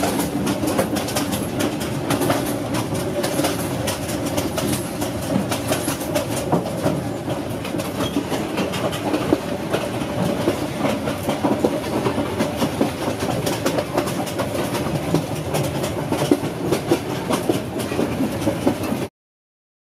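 Passenger train carriage running at speed, heard at its open doorway: steady rumble with wheels clattering over the rail joints. It cuts off suddenly near the end.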